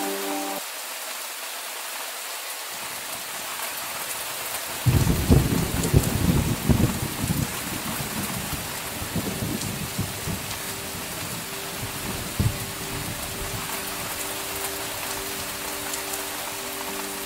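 Steady rain with a thunderclap about five seconds in that breaks into a crackling rumble and dies away over a few seconds, with a last sharp crack a few seconds later.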